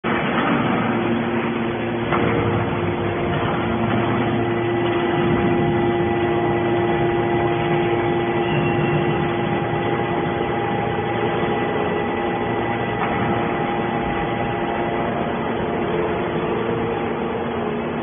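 Hydraulic scrap metal baler running: its hydraulic power unit gives a steady mechanical drone with a held whine over it.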